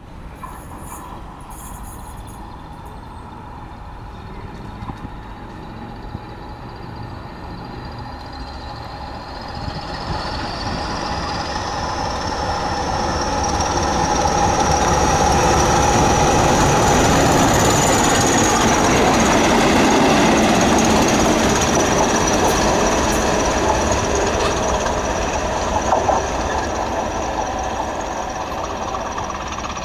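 British Rail Class 20 and Class 37 diesel locomotives (English Electric 8SVT and 12CSVT engines) working in tandem with a nuclear flask wagon, passing at speed. The engine noise builds as they approach, is loudest about halfway through as they pass, and fades as the train goes away. A high whistle climbs in pitch as they draw near, and there are a few sharp wheel clicks near the end.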